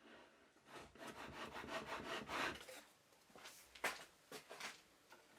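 A hand tool cutting a thin wooden strip, heard as a run of short rasping strokes for about two seconds, then a few separate scrapes.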